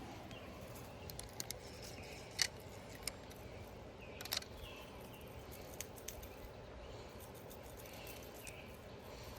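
Faint outdoor background noise, a steady low hiss, with a few small scattered clicks; the clearest come about two and a half seconds in and just after four seconds.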